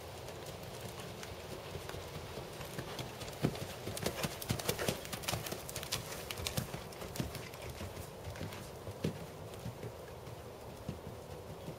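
Hoofbeats of a ridden Percheron/Thoroughbred gelding moving over sand arena footing, a run of dull strikes that grows louder and sharper from about three and a half to seven seconds in, then fades again.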